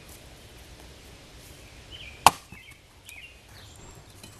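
One sharp chop into firewood a little after halfway through, a single loud strike of a tool splitting wood.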